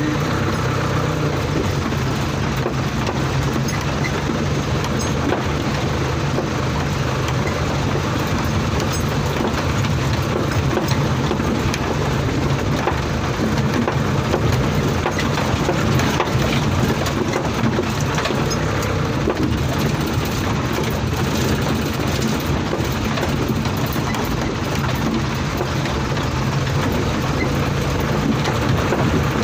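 An old truck's engine running steadily as it drives over a rough, muddy dirt track, with constant rattling and clattering from the cab and body over the ruts.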